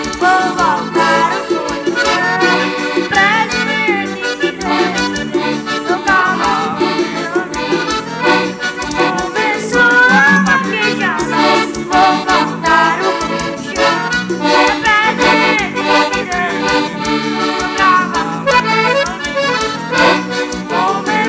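Piano accordion playing a lively instrumental passage of a forró-style tune over a steady beat.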